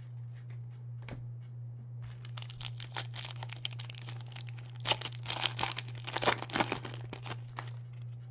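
Foil trading-card pack torn open by hand, the wrapper crackling and crinkling in many quick little rips, loudest in the middle, over a steady low electrical hum.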